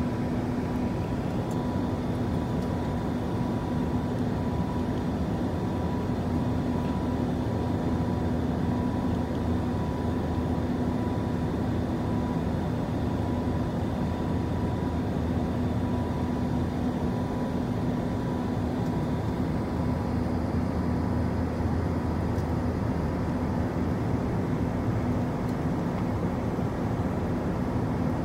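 Cabin noise inside an Airbus A380-800 airliner in flight: a steady rushing drone of engines and airflow, with a constant low hum and a fainter high tone running through it.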